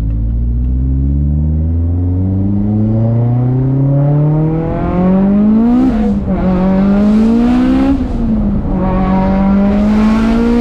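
Mitsubishi Lancer Evolution's turbocharged four-cylinder engine pulling hard under full throttle. The revs climb steadily for about six seconds, drop at an upshift, climb again and drop at a second upshift about eight seconds in, then climb once more.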